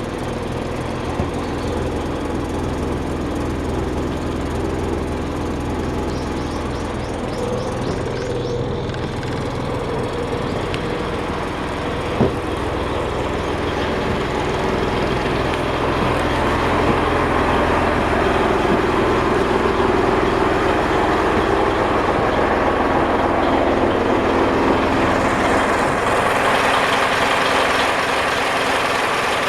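Yanmar 6KY-ET marine diesel engine running steadily. It gets somewhat louder from about halfway through, and a hiss rises over the last few seconds.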